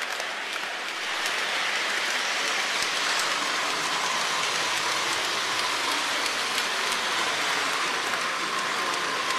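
Three-rail O-gauge model train running along the layout track: a steady, even rolling hiss, with a faint steady tone coming in over the second half.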